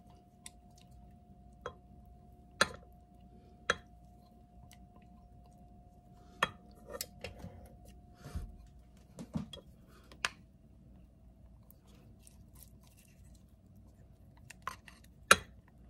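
Spatula and bowl knocking and scraping against the mini rice cooker's nonstick pot as egg mixture is scraped in and spread: about a dozen light, separate knocks and clinks, with a faint steady hum underneath.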